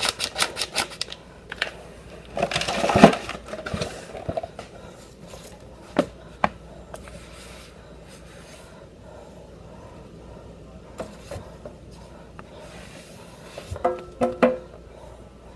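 Paper packet of ganache mix shaken empty over a ceramic bowl, a fast even run of shakes that stops about a second in. A loud rustle follows about three seconds in, then a few light clicks and knocks of kitchen handling, with a short clatter near the end.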